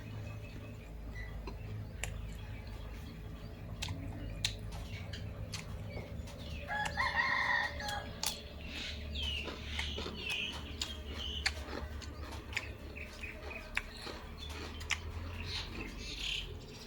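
A rooster crowing once, about seven seconds in, in one held call of about a second and a half. Small birds chirp and scattered light clicks sound over a low steady hum.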